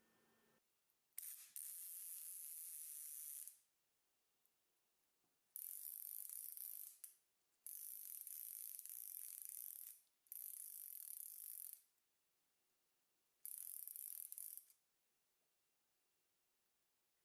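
Five bursts of a dry, scratchy rasping noise, each lasting one and a half to two and a half seconds with short pauses between. It is the kind of sound that sets the cats licking.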